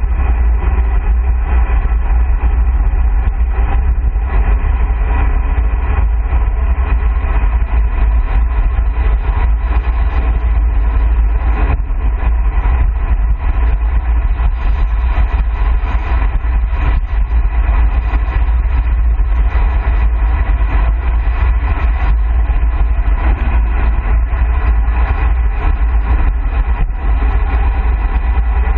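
Steady, heavy wind rumble buffeting a handlebar-mounted camera's microphone on a fast road-bike descent at around 45–55 km/h, with road and tyre noise underneath.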